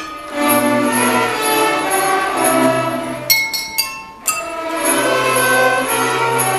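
Children's orchestra playing a Christmas piece, with kitchenware (glasses, pots and pans) played as solo percussion. A little past halfway, a quick run of about five sharp strikes rings out.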